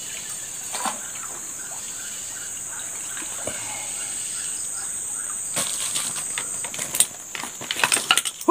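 Water splashing on a river surface as a snakehead strikes a surface lure, with bursts of splashing and thrashing over the last few seconds as the fish is hooked. A steady high insect buzz carries on underneath.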